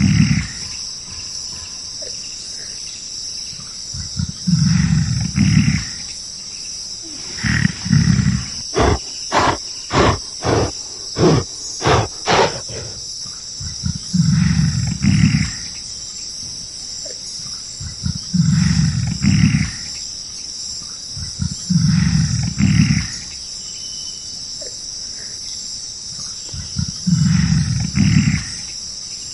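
Deep, loud animal calls about every three to four seconds, over a steady high insect chorus. Partway through, a quicker run of about nine short calls comes at two to three a second.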